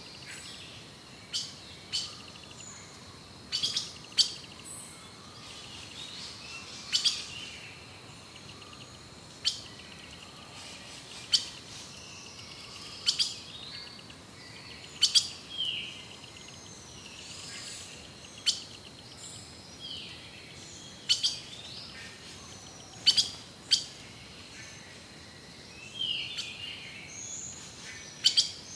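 Several birds chirping and calling, with sharp, loud notes every second or two over softer varied chirps, and a faint steady high tone running underneath.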